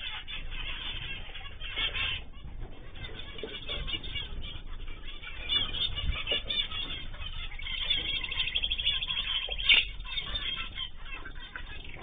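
Ornamental cage birds chattering: a dense, continuous mix of high chirps and calls, louder in a few stretches.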